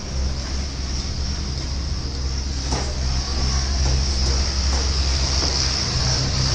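Steady low rumble with a constant high hiss of background noise, with one light knock nearly three seconds in.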